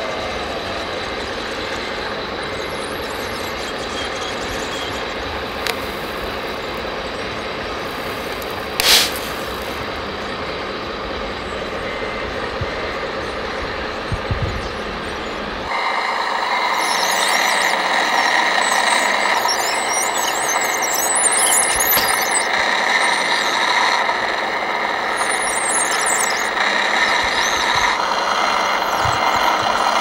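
Electric motors and gearboxes of RC model construction vehicles whining steadily, with one sharp click about nine seconds in. About halfway through the sound turns louder and higher, with squealing, as the RC crawler bulldozer strains on the cable to pull the overturned tipper truck upright.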